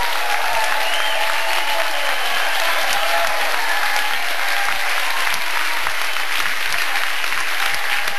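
Large crowd applauding steadily, with a few voices calling out in the first couple of seconds.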